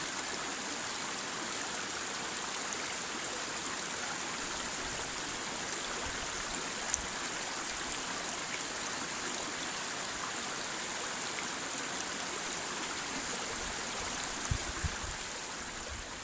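Stream water rushing steadily, fading out at the end, with a couple of faint knocks near the end.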